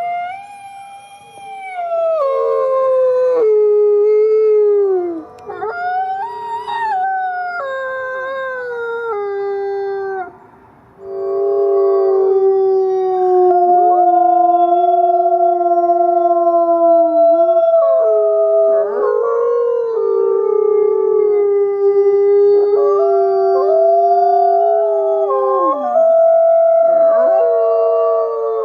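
Wolves howling: early on, one or two long howls that slide down in pitch, then from about eleven seconds in several wolves howl together in long overlapping notes at different pitches, a pack chorus.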